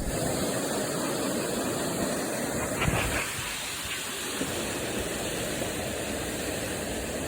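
Waterfall and cascading water rushing steadily, with a faint knock about three seconds in.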